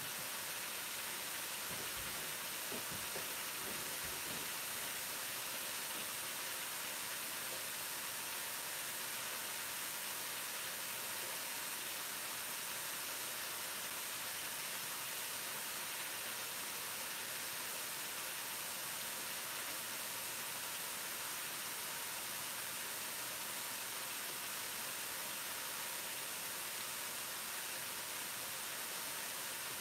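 Steady hiss of curry sauce sizzling and reducing in a frying pan over a gas hob, as the base gravy for a jalfrezi cooks down.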